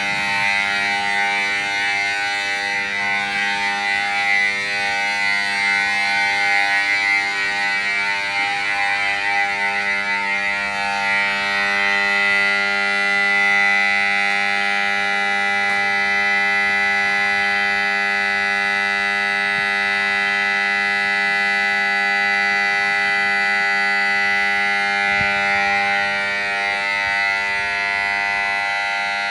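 Japanese station platform emergency-stop alarm sounding without a break: a loud electronic alarm of several steady tones, slightly fluttering for the first ten seconds or so and then steadier. It signals that a platform emergency stop button has been pressed and trains are halted.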